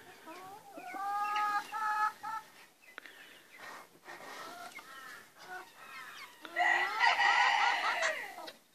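Chickens calling and clucking: a drawn-out call about a second in, a run of short clucks midway, and a louder tangle of several overlapping calls near the end.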